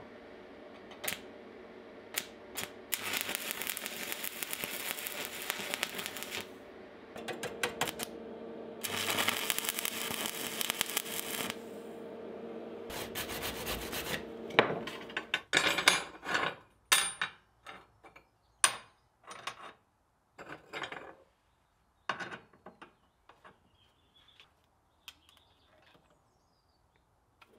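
Angle grinder running with a steady hum, biting into rebar clamped in a vise in two long loud passes before it stops. Then a run of sharp metallic clinks and knocks as steel pieces are handled and set down on a steel plate, thinning to faint ticks.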